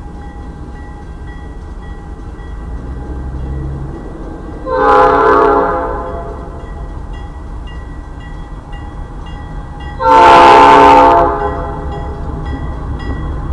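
Diesel freight locomotive sounding its air horn for a grade crossing, two blasts about five seconds apart with the second the louder. The crossing's warning bell dings steadily about twice a second over the low rumble of the approaching train.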